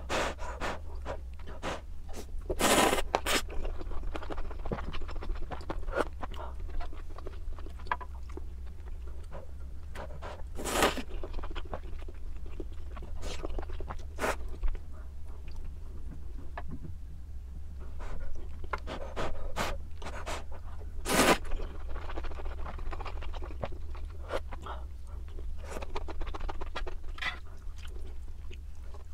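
A person eating tonkotsu ramen with chashu and egg: chewing and small utensil clicks, with a few louder noodle slurps at about 3, 11 and 21 seconds.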